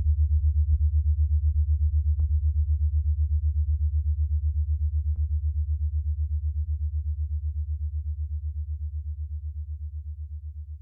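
Low synthesized drone pulsing rapidly and evenly, fading slowly in the second half, with a few faint clicks in the first half.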